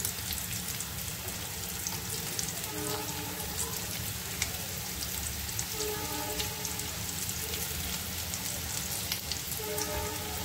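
Boiled potato slices and sliced onion frying in hot oil in a kadai: a steady sizzle with fine, rapid crackling.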